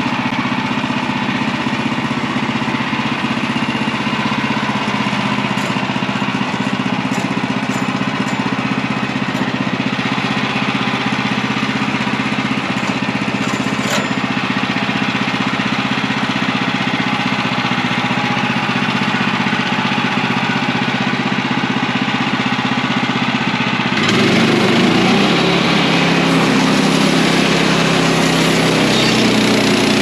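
Gas engine of a Woodland Mills HM130MAX portable bandsaw mill running steadily. About 24 seconds in the sound shifts abruptly and gets a little louder.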